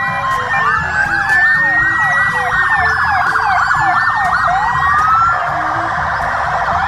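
Electronic police-style siren wailing, several sweeps rising and falling at once, from a toy police car; a little after halfway the sweeps give way to a denser, steadier warble.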